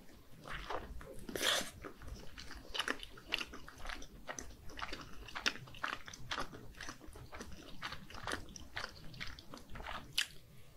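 Close-miked biting and chewing of skewered fish cake (eomuk) coated in thick spicy red sauce: a steady run of irregular sharp mouth clicks, with louder ones about a second and a half in and near the end.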